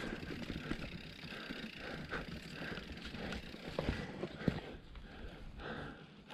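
Uneven steps and the scattered knocks and rattles of a mountain bike moving slowly over a dirt forest trail, with breathing in between.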